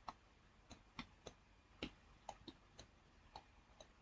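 Computer mouse button clicking, short sharp clicks at uneven intervals, about two or three a second.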